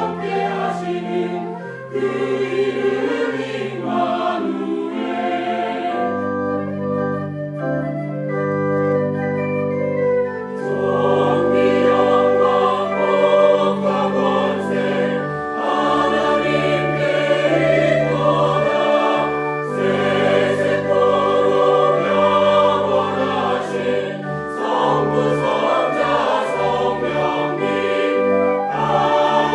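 A church choir singing an anthem in full harmony over sustained low notes. About six seconds in the sound thins to a sparser, quieter passage for a few seconds, then the full choir returns.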